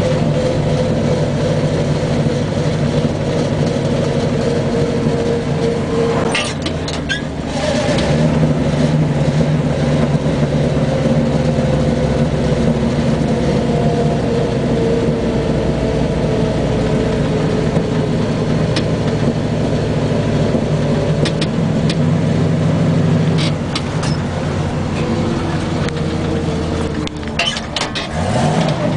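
Engine of a grain-hauling vehicle under way, a steady drone whose pitch sags slowly, with a brief change about six seconds in and again near the end.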